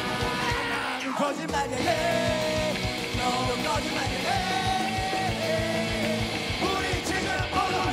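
Punk rock band playing live: a male lead vocal sung in Korean over a steady, driving drum beat and the band.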